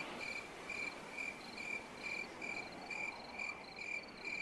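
Cricket chirping steadily, a little over two short, high chirps a second.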